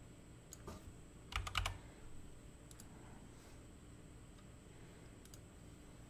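Typing on a computer keyboard: a quick run of keystrokes about a second and a half in, entering a new fan speed value, with a few fainter single clicks later.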